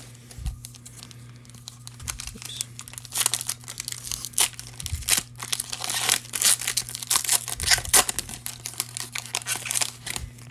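Foil wrapper of a Panini Prestige football card pack being torn open and crinkled by hand: a fast run of sharp crackles that starts about two seconds in, is densest in the middle and thins out near the end.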